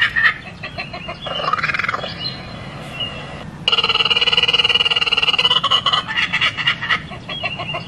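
Repeated crowing, rooster-like animal calls from a viral clip's soundtrack, dubbed over footage of a king cobra. The snake itself is not the source. One call rises and falls about a second and a half in. A steady, rapidly pulsing call starts abruptly at about three and a half seconds and runs for over two seconds, and shorter pulsing calls follow.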